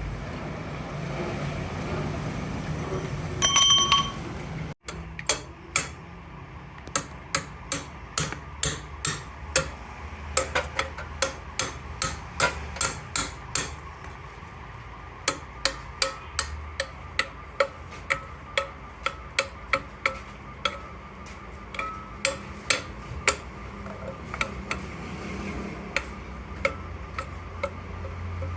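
Hammer striking steel during drive-shaft repair work: one loud ringing blow near the start, then a long run of sharp, light taps on metal at about two a second, over a steady low hum.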